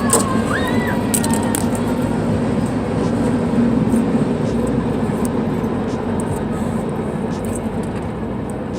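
A big train rolling past, a steady loud rumble that slowly fades toward the end, with a brief high squeal in the first second or so.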